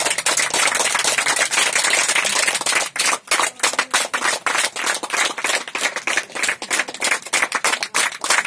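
A small group of people clapping their hands, dense and steady, with a couple of brief lulls about three seconds in.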